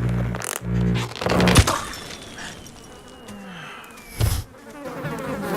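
Cartoon insect buzzing in short bursts, with a sharp hit about a second and a half in and a thin falling tone after it.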